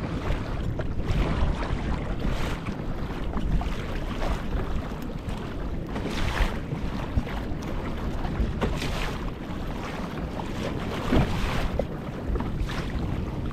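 Wind buffeting the microphone over open ocean swells, with water slapping and splashing against a kayak's hull a few times.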